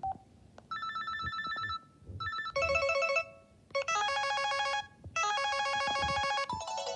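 LG MX200 mobile phone playing ringtones: a short beep, then a series of snippets of fast-pulsing electronic tones, each about a second long with short gaps and each on different notes, before a longer melody starts near the end.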